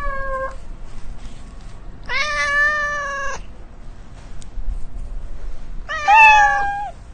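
Domestic cat meowing: the falling end of one meow at the start, then two long meows about four seconds apart.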